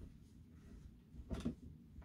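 Quiet room with one soft knock about a second and a half in.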